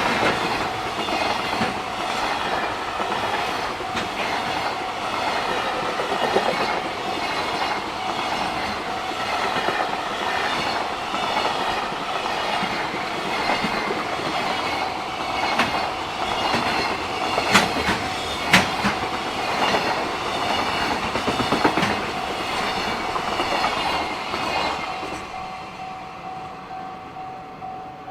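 JR Freight train passing close by, its wheels clattering steadily over the rail joints with a few sharper knocks, then fading near the end as the last wagons go by. A Japanese level-crossing alarm rings its repeating bell throughout.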